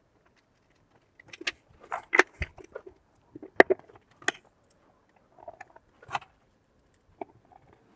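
Irregular light clicks and knocks of plastic and metal parts being handled as the small gear motor that drives the stirring arm of a Tefal ActiFry air fryer is set back into its plastic base.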